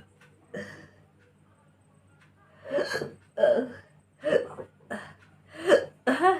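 A woman hiccuping repeatedly after gulping cola: a faint hiccup near the start, then six in quick succession from about three seconds in, roughly one every two-thirds of a second.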